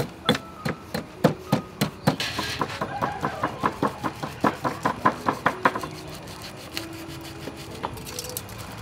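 A stone pestle pounding in a stone mortar: a steady run of sharp knocks, about three a second, that stops about six seconds in, after which only a few faint clicks are heard.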